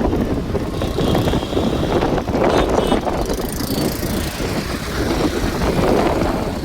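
Road and traffic noise with wind rushing over the microphone while riding a motorbike.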